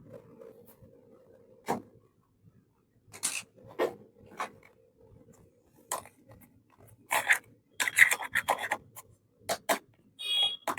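Small plastic miniature toy kitchen pieces and their packaging being handled: scattered clicks and taps, then a busier run of quick scraping rubs in the second half, and a short high squeak just before the end.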